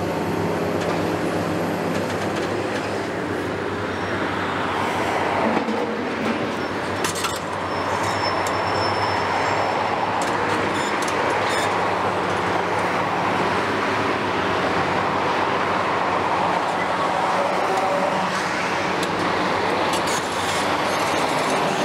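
Tracked demolition excavator's diesel engine running steadily under load, with hydraulic noise as its sorting grapple swings and lifts a concrete slab. A few short knocks and scrapes of concrete come about a third of the way in and again near the end.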